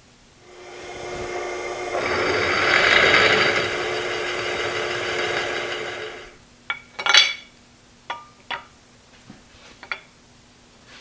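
Drill press running and drilling into metal for about six seconds, with a steady motor hum under the cutting noise, then stopping abruptly. A few sharp clinks and knocks of metal being handled follow.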